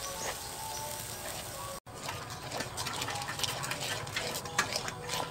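Metal ladle stirring and scraping in a wok as a brown sauce cooks. After a brief dropout a little under two seconds in, the sauce bubbles and sizzles with quick crackles and small clicks while the ladle keeps stirring.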